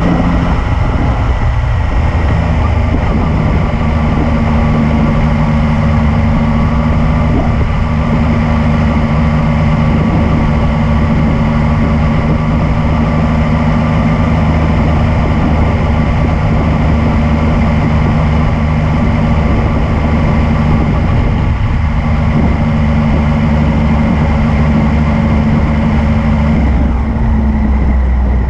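Yamaha MT-09's three-cylinder engine running steadily at an unchanging pitch, with the tone shifting slightly near the end.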